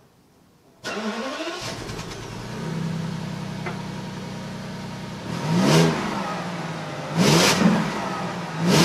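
Rolls-Royce Phantom's 6.75-litre naturally aspirated V12, with four silencers on the exhaust, starting up about a second in and settling into a steady idle, then blipped three times in short revs in the second half.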